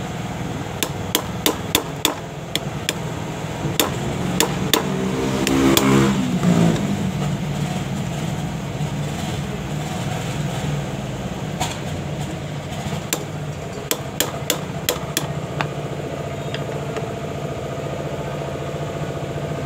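Hammer tapping a flat-blade screwdriver used as a punch on a diesel injector part resting on a steel block: runs of quick, sharp metallic taps, about seven in the first couple of seconds, a few more around four to six seconds, and another run between about twelve and fifteen seconds. A steady engine hum runs underneath and swells about six seconds in.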